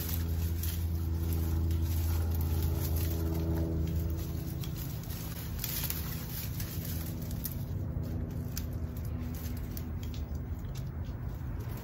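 A low, steady engine hum, loudest for the first few seconds and then fading, with rustling and small knocks of hands working among garden plants and soil.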